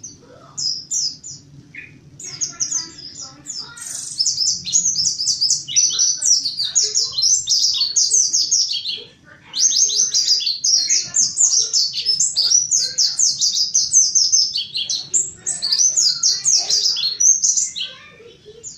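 Mountain white-eye (pleci montanus) singing a fast, high twittering song of rapid chirps. The song is scattered at first, then runs on almost without a break from about four seconds in, with one short pause near the middle, and stops just before the end.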